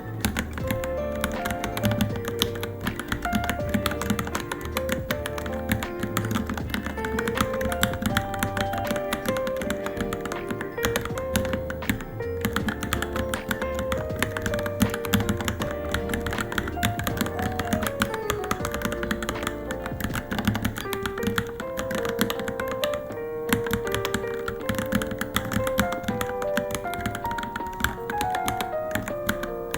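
Fast, continuous typing on a Varmilo Minilo mechanical keyboard, a dense run of key clicks, over background music with a melody and bass line.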